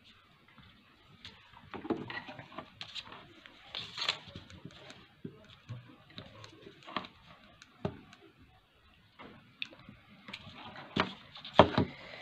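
Scattered taps, clicks and knocks of wooden ice-cream sticks and craft tools being handled and set down on a tabletop, the loudest knocks near the end.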